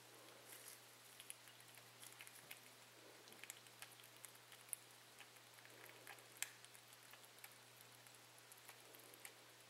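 Faint, irregular small wet clicks and ticks of baby cottontail rabbits lapping and sucking at the tip of a feeding syringe, over a steady low hum.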